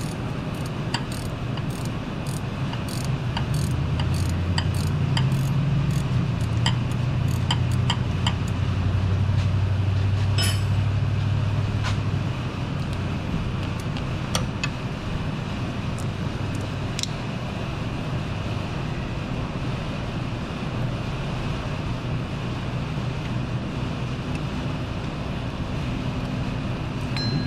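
Metal wrench clicking and ticking as the tight 17 mm bolt on the power steering pump's high-pressure line is worked loose and turned out. Under it runs a steady low hum that swells for several seconds early on.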